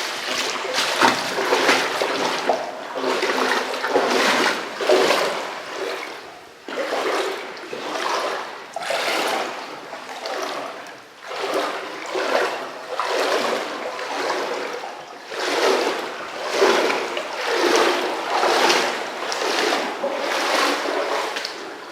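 Splashing and sloshing through shallow water, about one splash a second, like steady steps wading or crawling through it.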